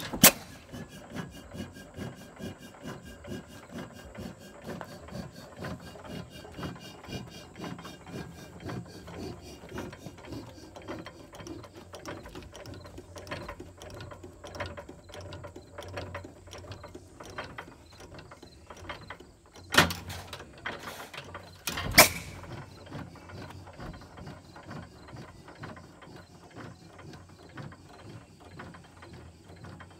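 Associated hit-and-miss gas engine running, with a steady rhythmic clatter of about three or four clicks a second. Three loud sharp bangs stand out: one just after it begins and two close together about two-thirds of the way through.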